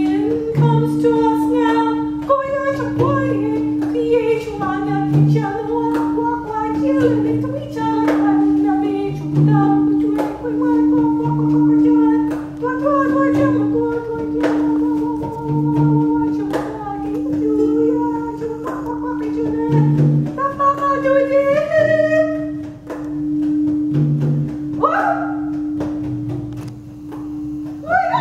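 A wordless female voice toning in gliding, held phrases over the steady ringing drone of a crystal singing bowl. A soft low drum beat falls about every two seconds, with light percussion clicks scattered through.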